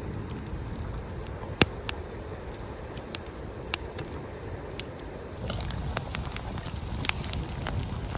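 Wood campfire burning with a steady low rush and sharp irregular pops and crackles.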